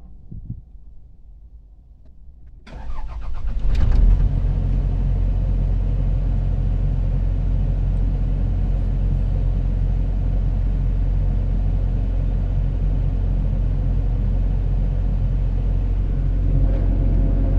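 Komatsu PC70-8 excavator's diesel engine cranking for about a second, catching at once and settling into a steady idle: a quick, normal start now that the faulty backup sensor that caused hard starting has been replaced.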